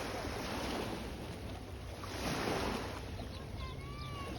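Sea waves washing in, with a swell of surf about two seconds in and wind on the microphone. Faint high gliding calls come in near the end.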